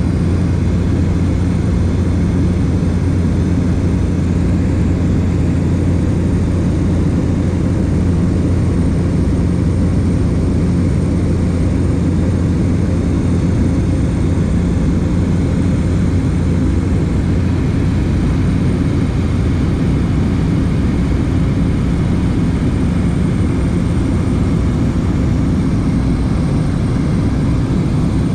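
Steady drone of a small propeller plane's engine heard inside the passenger cabin in cruise: a deep, even hum with no change in pitch.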